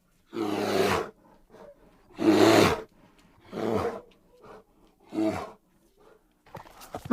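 A bear giving short, loud calls: four in a row, one every one to two seconds, each dropping in pitch as it ends, and a fifth starting right at the end.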